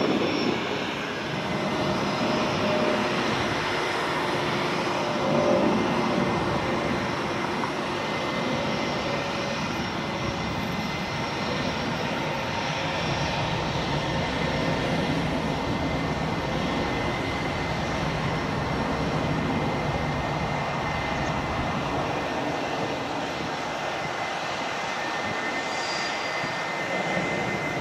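Airbus A380's four Engine Alliance GP7200 turbofans at climb power after takeoff: a steady jet rumble and hiss with a thin, steady high whine, fading slightly near the end as the airliner climbs away.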